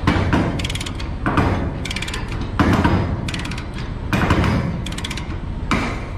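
Ratchet chain binder being cranked to tighten a tie-down chain. Repeated handle strokes, roughly one every half to three-quarters of a second, each with a quick run of ratchet pawl clicks and the rattle of steel chain.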